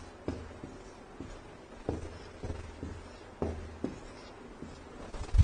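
Writing on a board: a string of short taps and strokes about every half second, with a louder knock near the end.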